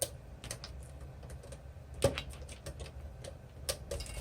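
Scattered light plastic clicks and taps from a sewing machine foot pedal and its cord being handled, with one sharper knock about two seconds in.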